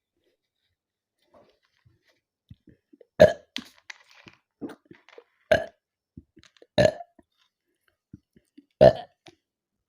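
A woman burps four loud, short burps from a bellyful of fizzy cola, spaced a second or two apart, with smaller quiet mouth sounds between them.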